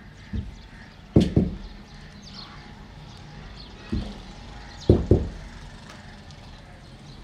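Thick liquid slurry sloshing and slapping in a pit in the ground as it is stirred by hand and with a stick, giving a series of dull, low thuds, several of them in quick pairs.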